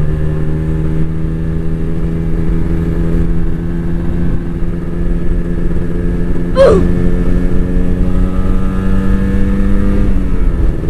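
Kawasaki Ninja RR 150's single-cylinder two-stroke engine on its stock exhaust, heard from the rider's seat, pulling steadily with its pitch slowly rising, then dropping near the end; low wind noise runs underneath. A short sharp whistle falling in pitch cuts through about two-thirds of the way in.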